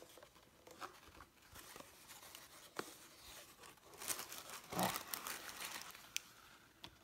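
Soft handling of a small white cardboard gift box: light taps and paper rustling, with a louder scraping rustle about four to five seconds in as the box lid is worked open.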